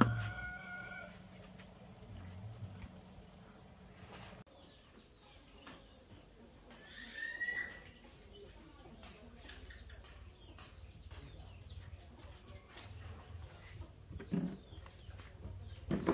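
A rooster's crow trails off at the start. Then comes a low farmyard background of chickens, with one short call that rises and falls about seven seconds in.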